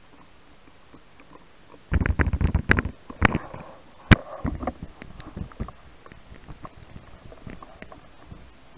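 Underwater knocks and rumbles picked up by a camera mounted on a speargun during a freedive descent. A dense cluster of low knocks comes about two seconds in, then a single sharp click, then scattered softer clicks and rumbles.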